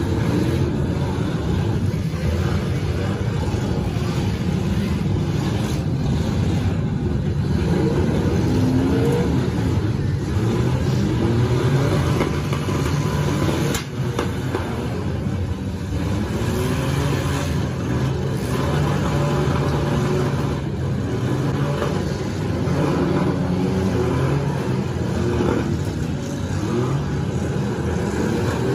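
Many demolition derby cars' engines running and revving hard at once, the pitches rising and falling over one another as the cars ram each other. A sharp crash of metal comes about halfway through.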